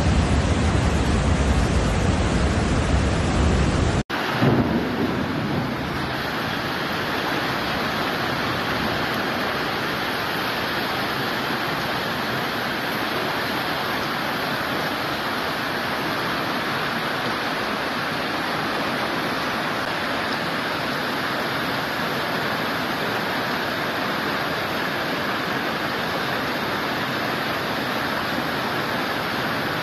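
Muddy floodwater rushing over a weir, a steady heavy rush; about four seconds in it cuts to the even, steady hiss of a hailstorm, hail and rain falling on streets and roofs.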